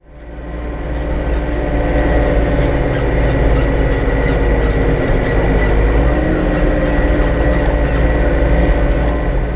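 Tractor engine running steadily while driving, heard from inside the cab: a deep rumble with a steady high whine, fading in over the first second.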